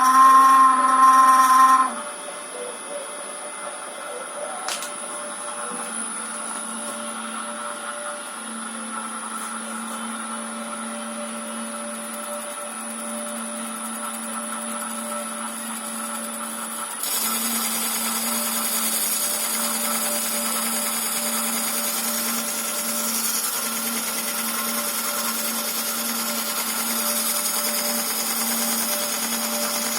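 Metal lathe's electric motor, driven by a VFD inverter, running with a loud pitched whine for the first two seconds, then settling to a steady hum with a few fixed tones. The whine comes from the motor because of the inverter. About 17 seconds in the sound steps louder, with more hiss added.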